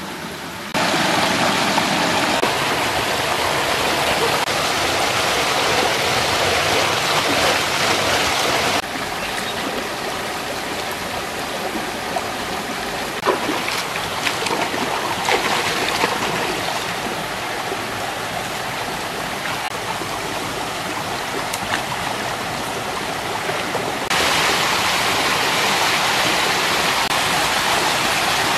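Rushing water of a small rocky stream and cascade, a steady hiss that jumps louder about a second in, eases at around nine seconds and grows louder again near the end. A few light knocks come in the middle.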